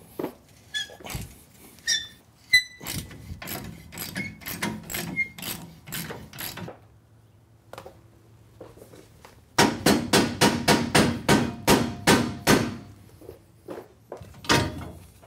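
Socket ratchet clicking in quick runs as nuts are backed off a spare tire bracket, with scattered metallic clinks of socket and hardware. The loudest run of clicks, about eight a second, comes about ten seconds in, and a single clunk follows near the end.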